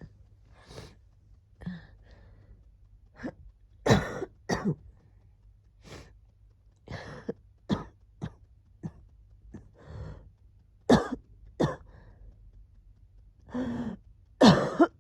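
Coughing from a cold: a string of short coughs and throat-clearings with pauses between them. The strongest come about four seconds in, around eleven seconds, and right at the end, while the wheezing is easing.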